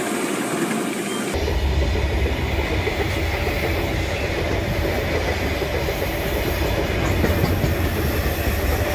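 Iron ore train's freight wagons rolling past close by, a steady clatter of wheels on the rails. A deeper rumble comes in about a second in.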